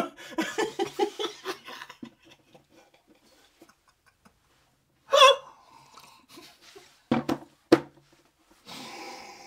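A man laughing in a quick run of short pulses, then a single vocal outburst, two short grunts and a long breathy exhale near the end, his reaction to the burn of a mouthful of wasabi.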